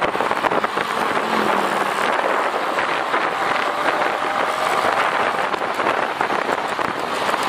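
Riding a Yamaha Xabre 150 motorcycle in traffic: a steady, loud rush of wind and road noise on the bike-mounted camera's microphone.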